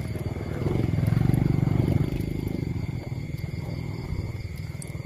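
A dog's low, rapidly pulsing rumble. It swells about a second in and eases off after a couple of seconds.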